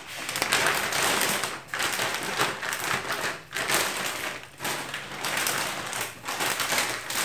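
A large clear plastic bag crinkling and rustling as gloved hands pull it off an engine block, in uneven handfuls with a few short breaks.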